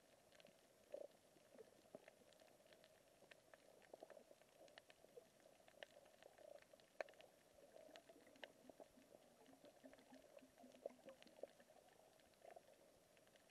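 Faint underwater crackle on a coral reef, the clicking of snapping shrimp: many scattered sharp clicks, several a second, over a steady low hiss.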